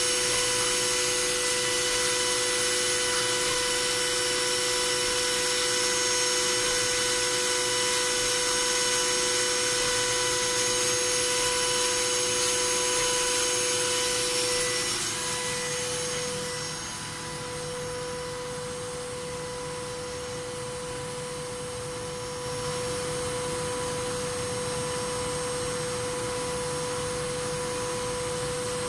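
CNC machining centre's high-speed spindle, running at 23,000 rpm, with an end mill cutting metal under flood coolant: a steady high whine of several tones over a hiss. About halfway through the hiss fades and the level drops, then rises a little a few seconds later.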